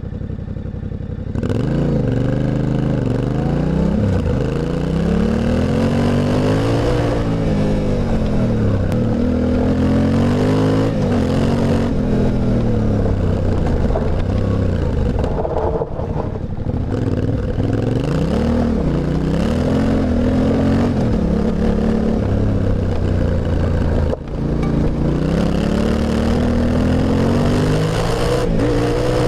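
Yamaha Ténéré 700's 689 cc parallel-twin exhaust, recorded close to the silencer while riding. The engine note climbs and falls again and again as the rider accelerates and eases off, getting louder about a second and a half in, with a couple of brief drops along the way.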